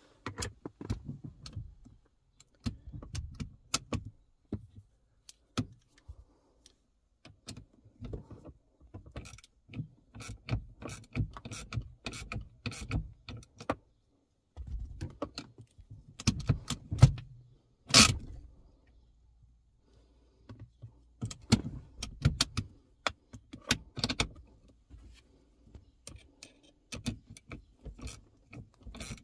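Irregular metallic clicks and rattles of a 10 mm socket wrench and tools working the handbrake lever's adjuster, with one sharper knock partway through.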